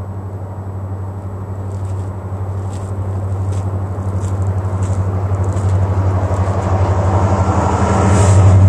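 Approaching Union Pacific diesel freight locomotives: a steady low engine drone grows steadily louder as the train nears, with a rising hiss of wheel and rail noise coming in near the end.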